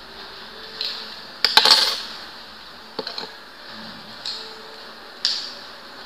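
Light metallic clicks and clinks of a Zippo lighter insert being handled while the flint spring and its screw are refitted into the flint tube. Several separate clicks, with a louder rattling cluster about a second and a half in.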